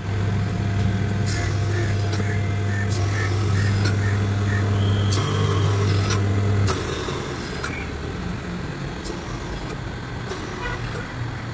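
Sewing machine clutch motor running, a steady electric motor hum with light mechanical running noise and occasional short scrapes or rattles. The strong hum cuts off about two-thirds of the way through, leaving a lighter running noise.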